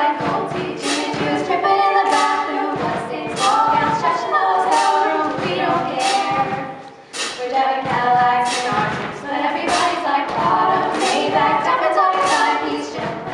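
Vocal group singing a cappella, several voices in harmony, with a short break about halfway through.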